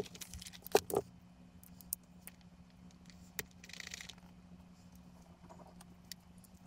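Small clicks and clatter of hand tools and a clear plastic compartment organiser box being handled, the two loudest clicks about a second in, with a short scratchy noise around four seconds in.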